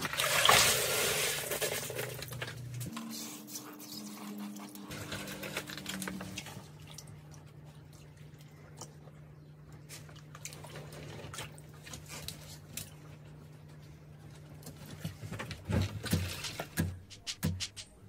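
Water poured from a container into a shallow pebble-lined pond splashes loudly for about two seconds, then dies away. This is followed by quieter splashes and small knocks as hands work in the water, over a steady low hum.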